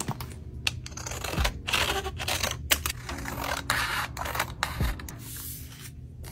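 Paper picture cards and a sticker being handled and slid over a journal page: light clicks and taps, with two longer papery rustles in the middle.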